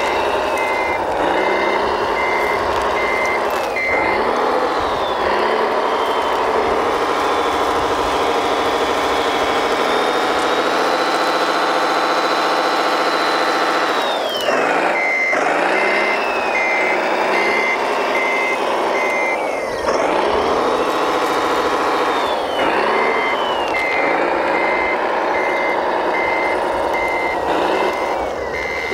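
Sound module of a 1/14-scale RC Mercedes-Benz Arocs 8x8 tipper truck playing a simulated diesel engine that revs up and down, holding high for a few seconds in the middle. A reversing beeper sounds about twice a second at the start, briefly in the middle and again through the last few seconds.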